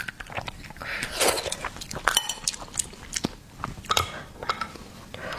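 Close-miked eating of seafood: irregular biting and chewing with sharp clicks and crunches.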